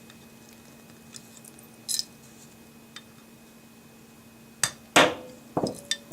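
Small metal clicks of an AR-15 front pivot pin being worked through the lower receiver, then two sharper metallic knocks with a short ring about five seconds in.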